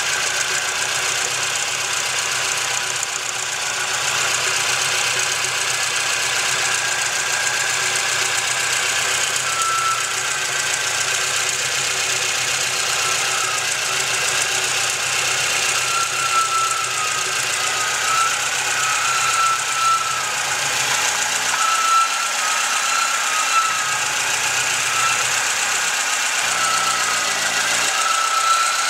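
Volvo 242 turbo's four-cylinder engine running with a horrid noise, heard as a steady harsh sound with a high thin tone that comes and goes in short stretches from about a third of the way in. The owner has ruled out turbo shaft play and does not know the cause.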